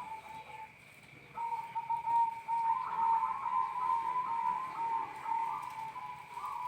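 Zebra dove (perkutut) cooing: a run of short, quick notes that pauses briefly under a second in, then resumes and carries on.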